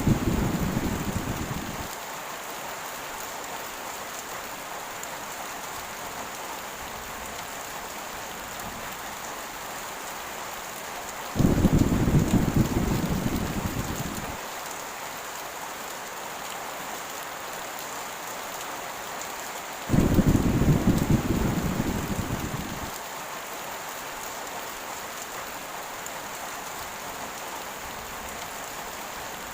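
Heavy rain falling steadily, with thunder rumbling three times. The first rumble dies away in the opening two seconds; two more start abruptly about 11 and 20 seconds in, each fading out over about three seconds.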